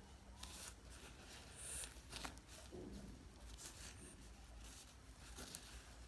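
Faint, brief rustles and scratches of a hand brushing against a frog and the cloth towel under it, scattered through, over a low steady hum.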